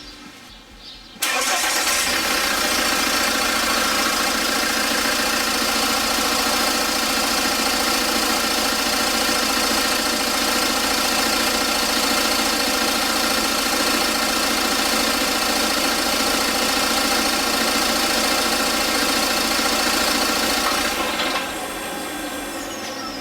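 Ford Duratorq 1.8 TDCi four-cylinder turbodiesel starting about a second in, then idling steadily on its first run after an oil change. The sound drops in level near the end.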